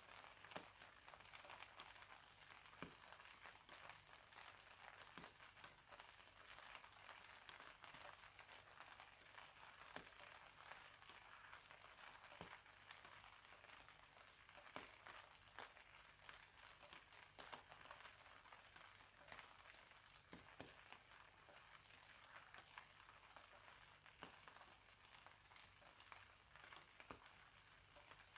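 Faint steady rainfall, with scattered single drops ticking sharply on a nearby surface.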